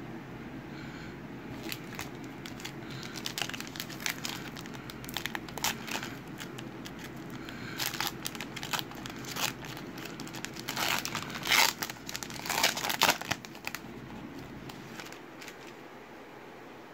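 Foil trading-card pack wrapper being torn open and crinkled by hand: a run of irregular crackles, loudest about eleven to thirteen seconds in.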